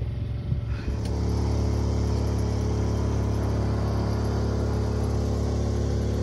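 Sailboat's inboard engine running steadily under load, pushing the boat against a tidal current; a low, even hum that settles in about a second in.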